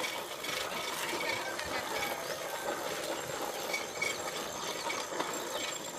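TVS XL100 moped riding over a stony dirt track: a steady rushing noise of wind and tyres, with many small clicks and rattles.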